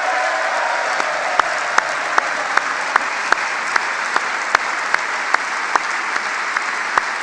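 A large audience applauding steadily, with single louder claps standing out at an even beat of about two and a half a second.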